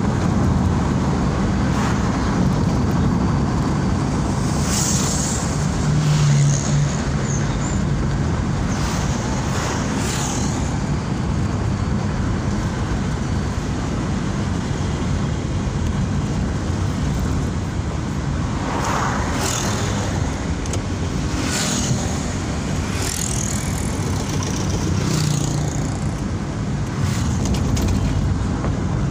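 Steady engine and road noise heard inside a Daihatsu Ayla's cabin while driving, with several brief swells of passing traffic.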